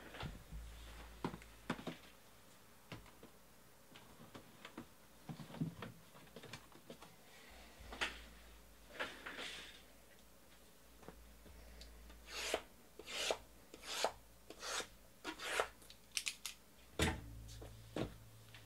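Sealed cardboard trading-card boxes being handled and shifted on a table: scattered knocks and slides, then a run of about eight short rasping strokes as hands rub and scrape along the boxes, and two sharper knocks near the end.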